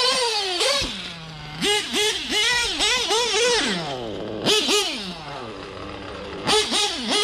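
Novarossi .25 nitro engine in a 1/8-scale RC truggy revving in a string of short throttle bursts, each rising and falling quickly. It drops to a low idle about a second in and falls away in a long slide in the second half. The engine is new and still tuned rich for break-in.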